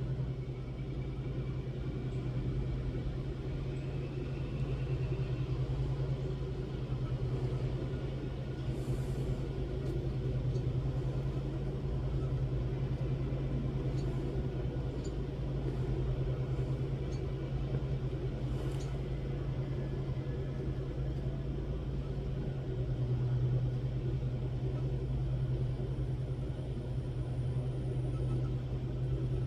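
Jeweler's soldering torch flame burning with a steady rumble, heating a silver piece all over before the silver solder is applied.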